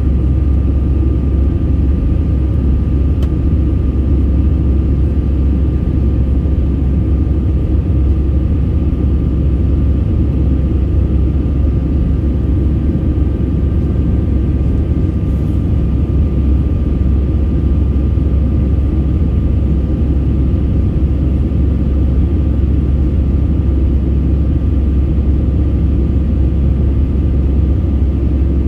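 Steady jet airliner cabin noise during the climb after take-off: a deep, even rumble of the engines and rushing air, with a faint steady high tone above it.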